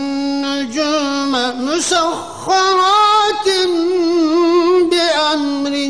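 A man reciting the Quran in melodic tajweed style, a high, ringing voice drawing out long held notes with wavering ornaments, with a short break about two seconds in.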